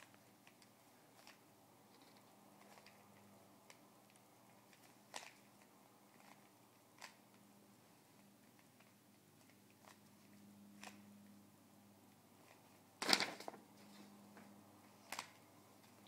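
Rubik's cube being turned by hand: faint scattered plastic clicks as the layers rotate, with a louder short clatter late on, over a quiet steady room hum.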